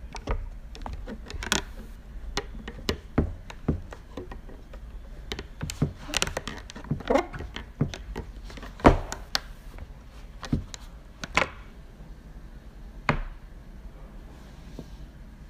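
Leather boots stepping on a hard floor and onto a plastic folding tablet stand under full body weight: irregular knocks, taps and clicks, the loudest about nine seconds in.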